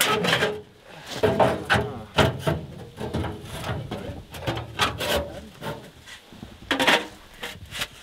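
Irregular knocks, scrapes and rubbing of camping gear being handled, with a louder clatter near the end.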